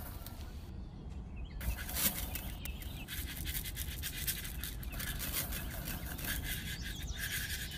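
Seeds dropped by hand pattering onto loose sand, with the fingers brushing the sand: a scratchy rustle made of many small clicks.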